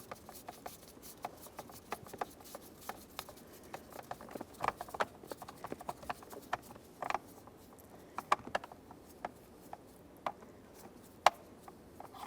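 Irregular light clicks and taps of hard plastic steering column cover trim and its screws being handled and fitted by hand, with one sharper click near the end.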